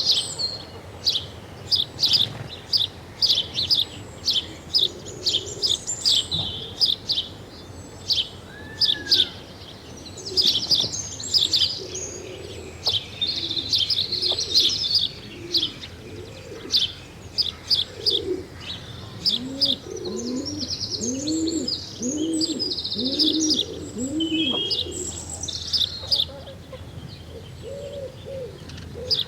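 Early-morning birdsong: many small birds chirping and twittering in quick high calls. In the second half, a series of low cooing calls repeats about twice a second.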